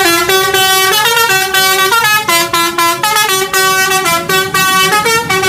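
A musical vehicle horn playing a quick tune, its notes stepping up and down about four times a second.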